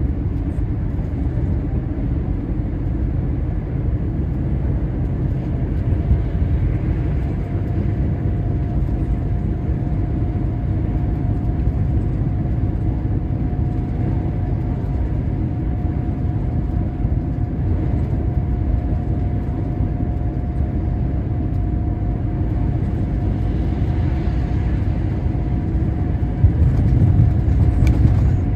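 Truck cab interior while cruising on a motorway: a steady low drone of engine and tyre/road noise, with a faint steady whine from about six seconds in. The noise swells a little near the end.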